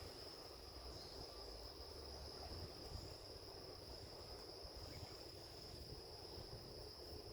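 Crickets trilling in one continuous, steady, high-pitched drone, faint, over a soft low rumble.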